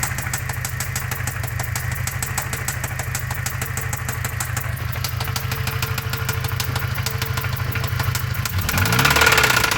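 Toyota 22RE 2.4-litre four-cylinder engine idling with a fast, even knock, which appeared after the valve cover was refitted. Near the end the engine is briefly revved up and drops back to idle.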